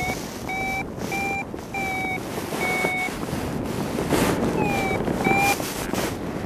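Paragliding variometer beeping in short, evenly pitched beeps, about half a dozen with a pause in the middle, the climb tone that signals the glider is rising in lift. Steady wind rush on the microphone underneath, with louder gusts around the fourth and sixth second.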